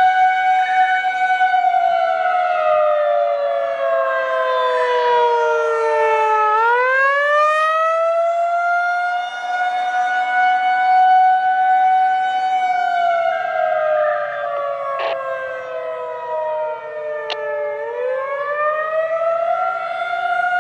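Federal Signal 2001-SRN electromechanical warning siren sounding the wailing attack signal. Its tone holds high, slides slowly down over about five seconds, then winds quickly back up and holds. The cycle runs twice.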